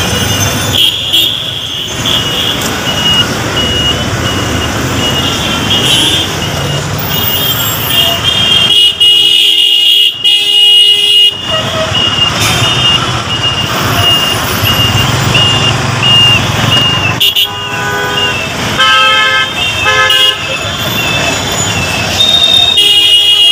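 Heavy city street traffic in a jam: engines running under repeated vehicle horn honks, with one long loud horn blast near the middle and several shorter honks later. A high-pitched beeping repeats over the traffic for much of the time.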